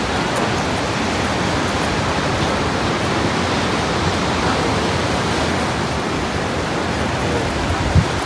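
Steady rush of ocean surf breaking on the beach and seawall, with a brief low thump near the end.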